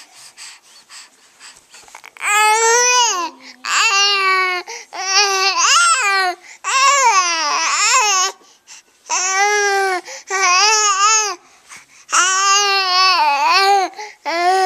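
Young baby babbling in a string of high, drawn-out vocal sounds whose pitch rises and falls, about eight utterances with short pauses between them, starting about two seconds in.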